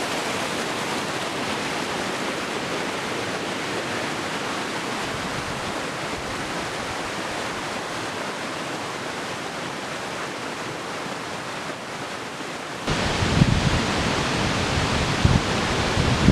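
Steady rushing water of a mountain creek swollen with spring runoff. About thirteen seconds in it turns suddenly louder, with a couple of low thumps on the microphone.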